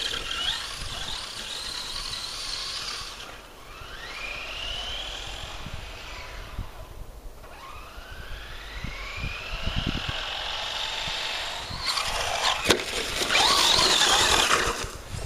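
Brushless electric motor of a Traxxas Stampede 4x4 RC truck whining under throttle, its pitch rising steadily twice as the truck speeds up. Near the end the whine gets louder and busier, with one sharp knock.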